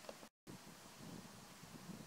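Near silence: faint background hiss, with a brief dead-silent gap about a third of a second in where the video is cut.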